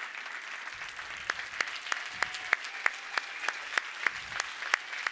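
Audience applauding, with one pair of hands clapping close by, sharp and even at about three claps a second above the steady clatter of the crowd.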